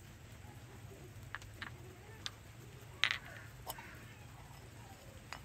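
Small ceramic and clay spice pots being handled and set down by hand: a few light clinks and clicks, the loudest about three seconds in, over a low steady hum.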